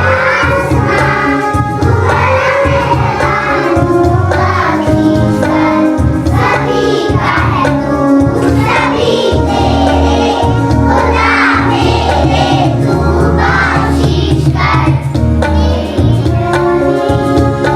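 A group of young children singing together over steady instrumental backing music.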